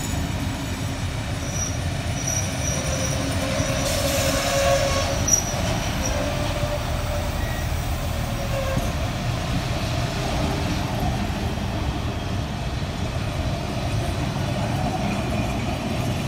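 A train running on rails with a steady rumble. A thin squealing tone from the wheels comes in for a few seconds in the first half, with a single sharp click about five seconds in.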